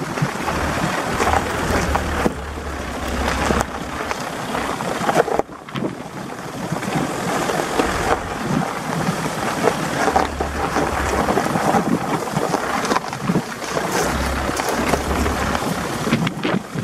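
A vehicle driving slowly over a rocky dirt track, heard from its open window: wind buffeting the microphone in gusts of deep rumble, over a dense crackle of tyres rolling on loose stones.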